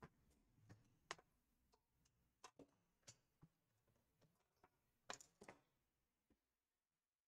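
Near silence with faint, scattered clicks and taps of small parts and tools being handled, the loudest pair about five seconds in.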